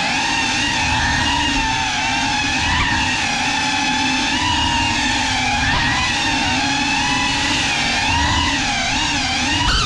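GEPRC CineLog35 cinewhoop drone's brushless motors and ducted propellers whining, picked up close by the GoPro it carries. The pitch rises and falls continually as the throttle changes.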